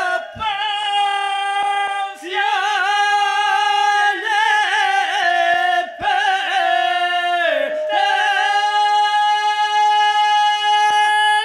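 Unaccompanied male singing of a northern Albanian highland 'krye krahi' song: loud, long-held high notes with a quavering, ornamented middle stretch, broken by short pauses for breath.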